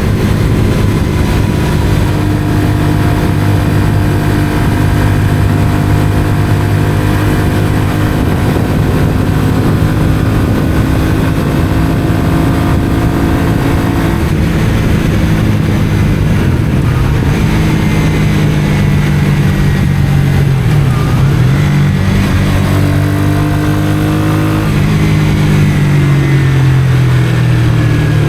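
Honda CBR125R (JC39) single-cylinder four-stroke engine through a Mivv aftermarket exhaust, under way. It holds a steady engine speed, changes about 14 s in, then the revs dip and climb several times and fall away near the end.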